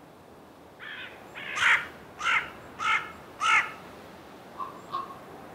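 A large black corvid calling: one short call, then four loud, harsh calls about every half second, followed by two faint ticks near the end.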